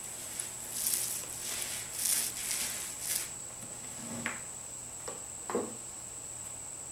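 Paint roller spreading thick DuraTex roller-grade texture coating on a speaker cabinet: about three short, wet hissing strokes in the first half, then two short sharper sounds later on. A steady high whine sits behind it.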